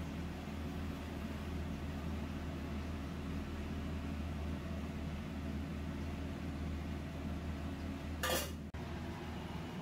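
Steady low hum of kitchen machinery, with a short clatter of cookware about eight seconds in.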